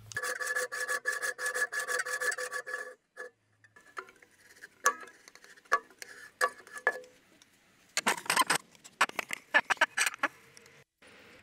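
Traditional bow drill spinning back and forth as its cord drives the spindle into a hardwood workpiece, a rhythmic squeaky whir lasting about three seconds. Scattered clicks and taps follow, and near the end a quick run of scraping strokes on the wood.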